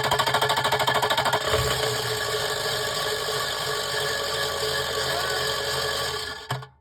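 Ford 6.0 Power Stroke diesel V8 cranking on its starter with a fast rhythmic pulse, catching about a second and a half in and then running steadily until the sound stops abruptly near the end. The truck makes a grinding rattle on start-up that the owner traced to the starter pinion after replacing the high-pressure oil pump.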